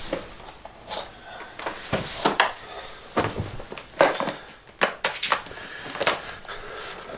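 A series of light knocks and clatters of objects being handled, about a dozen irregular hits spread over several seconds, a few with a short ring after them.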